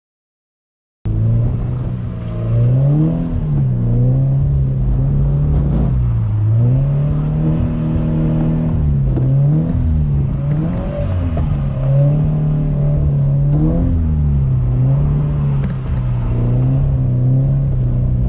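Silent for about the first second, then a car engine revving up and down over and over as the car is thrown into drifts on a wet road.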